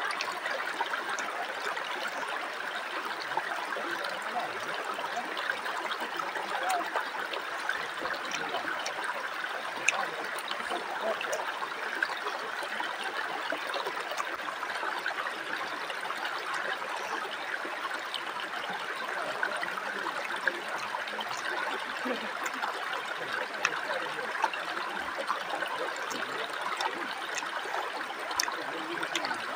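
Shallow rocky river flowing steadily around the microphone, a continuous rush of water, with a few brief clicks here and there.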